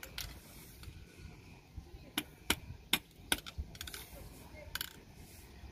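Several sharp metallic clicks as loose brake lining segments and rivets from a Cessna 208B's wheel brake are picked up and set down on concrete, the loudest bunched around the middle.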